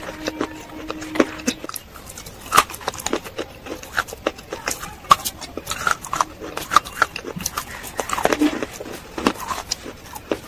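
Baked clay balls (edible claypot 'cookies') being bitten and chewed close to the microphone: irregular sharp crunches, several close together at times.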